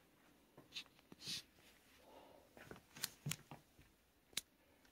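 Faint, scattered clicks and taps: a couple of short soft rustles in the first second and a half, then three sharper clicks in the second half.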